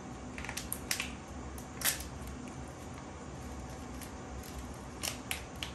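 Jolochip's foil chip packet being handled and torn open by hand: scattered sharp crinkles and crackles, loudest about two seconds in, with a quick cluster near the end.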